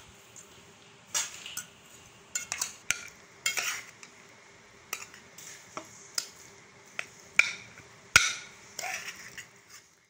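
Metal slotted spoon scraping and clinking against a steel cooking pot as rice is scooped out and served onto a plate, in irregular scrapes and clicks with one sharp clink about eight seconds in.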